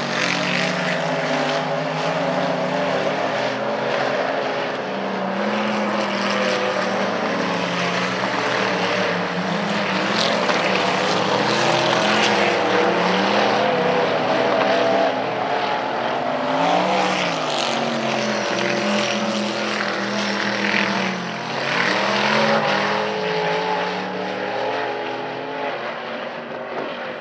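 Several dirt-track modified race cars' engines running hard around the oval, their pitch rising and falling as they accelerate down the straights and lift for the turns. The sound fades toward the end as the cars move away.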